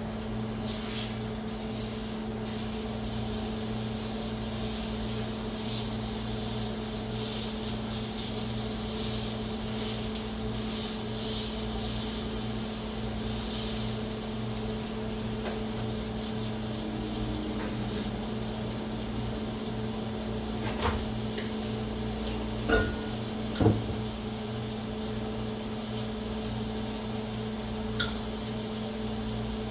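Microwave oven running with a steady low hum. A few light knocks come about two-thirds of the way in and again near the end.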